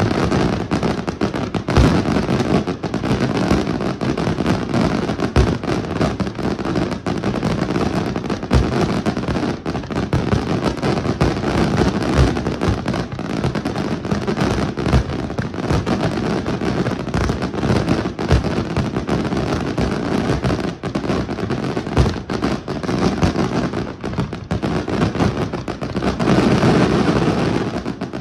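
Aerial fireworks display: a dense, continuous barrage of bangs and crackling shells, with sharp reports in quick succession. The barrage swells louder near the end.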